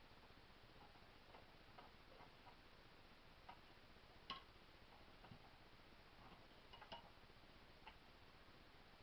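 Faint, scattered light clicks and taps of a Winchester 1977XS air pistol's parts being handled and fitted during reassembly, over a steady low hiss; the sharpest click comes a little past four seconds in, another near seven seconds.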